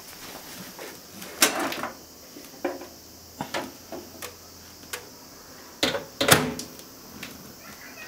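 A dish with a whole chicken is set into a microwave oven with several knocks and clatters, then the oven door shuts with a loud clack about six seconds in, followed by light taps on the control panel.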